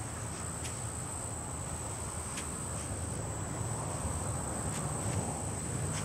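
Insects trilling steadily on one continuous high pitch, over a low background rumble with a few faint ticks.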